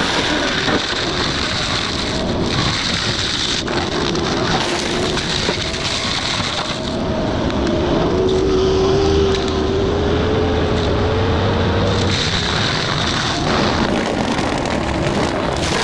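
Excavator's diesel engine running steadily under load while driving a hydraulic forestry mulcher head through brush, with a whine that rises slowly in the middle.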